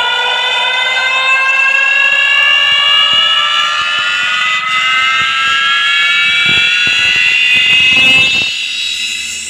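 Siren-like sound effect played loud through a sound system during a sound check: a multi-toned wail rising slowly and steadily in pitch, dying away near the end.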